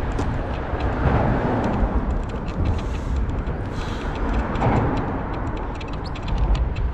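Wind rushing over the microphone with a steady low rumble as a bicycle rolls along, with scattered light rattling ticks.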